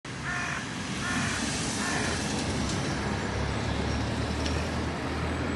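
Steady outdoor city ambience: a continuous low rumble and hiss of distant traffic, with a few brief high calls in the first two seconds.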